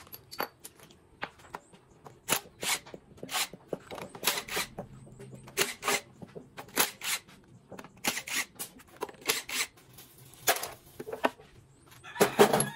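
Scattered sharp metallic clicks and clinks of hand tools and bolts as an engine valve cover is unbolted and lifted off, about one or two a second, with a louder burst of clatter near the end.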